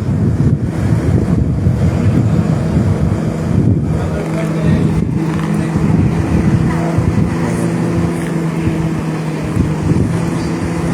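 Heavy vehicle engine running loudly and steadily with a low hum, as the transport moves along the street.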